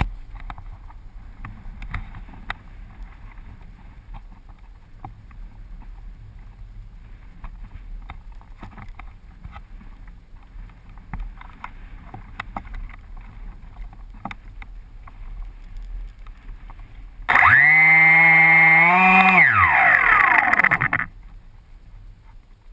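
Electric motor and propeller of an Axn Floater Jet RC foam plane spinning up to a loud, steady whine for about three and a half seconds, rising a little in pitch, then winding down and stopping as the throttle is cut. Before it, a quiet rustle with scattered faint clicks.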